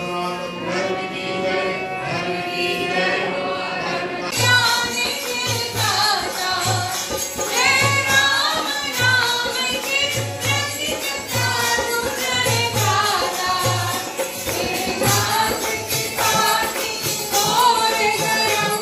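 Devotional kirtan chant: voices singing a melody over jingling hand percussion and a drum. About four seconds in, the jingling and the drum come in more strongly, the drum beating about one and a half times a second.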